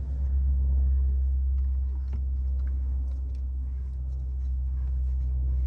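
A steady low rumble with faint, scattered light clicks and taps, as of a part being handled and fitted by hand.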